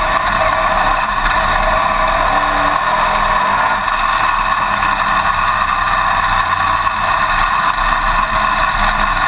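Dirt-track wing modified race car's engine running hard at racing speed, heard loud and steady from a camera inside the cockpit.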